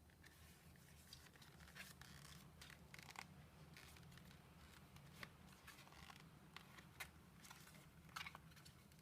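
Faint handling noise: soft rustling with scattered light clicks, a few sharper ones standing out, over a low steady hum.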